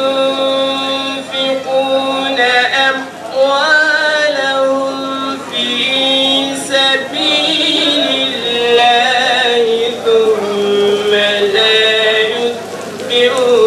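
A man's voice chanting in long, melismatic held notes with wavering pitch, in the style of Quran recitation.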